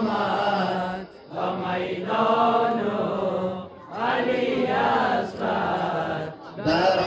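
Male voice chanting a Dari-Persian noha, a Shia mourning lament for Imam Husain and Ali Asghar, in long melodic phrases of about two to three seconds, broken by short breaths three times.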